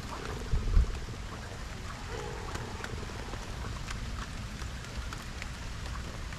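Light rain falling, a steady hiss with scattered small drop ticks over a low rumble. A low thump about half a second in is the loudest sound.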